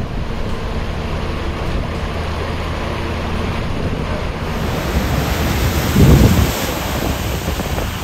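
Wind buffeting a phone microphone over the wash of floodwater, with a low steady engine hum underneath in the first half. A heavier gust thumps the microphone about six seconds in.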